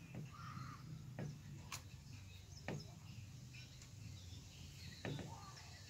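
Faint lakeside ambience: scattered bird chirps with a few soft clicks over a low steady rumble.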